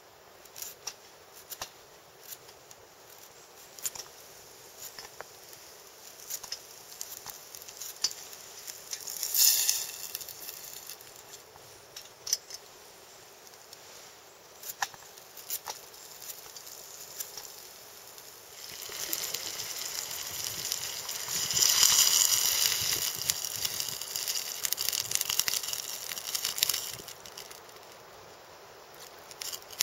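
Small wood-burning camp stove crackling under a metal cooking pot, with scattered sharp clicks and the odd clink or scrape of the pot. About two-thirds of the way in, a steady hiss rises and runs for several seconds before dying away.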